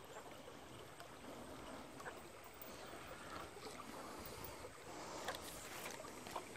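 Faint steady flow of a shallow creek over a riffle, with a few light clicks about five seconds in.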